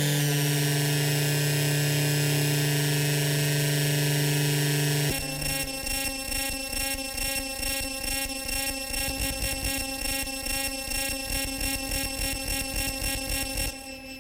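Qun mk2 synthesizer playing a drone: a steady held chord of tones with hiss over it, which about five seconds in switches abruptly to a pulsing, throbbing texture that drops in level near the end.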